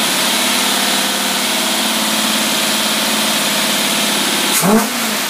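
Test-stand engine running steadily above idle on a freshly rebuilt Carter AFB marine four-barrel carburetor, the throttle worked by hand. Near the end there is a sharp click and a quick rise in engine pitch as the throttle is blipped.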